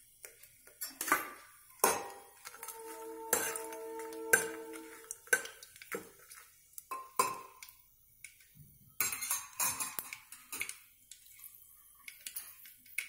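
Steel spoon clinking, knocking and scraping against the inside of an aluminium pressure cooker while stirring whole spices in a little oil, in scattered irregular strokes. A ringing metallic note holds for about two seconds, starting about three seconds in.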